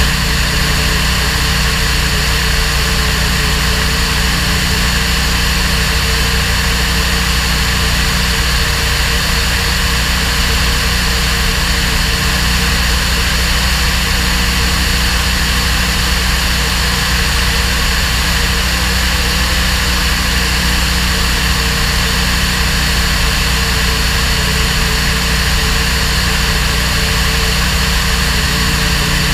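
Single-engine light aircraft's engine and propeller running steadily in cruise flight, a constant drone with air rushing past, without change in pitch or level.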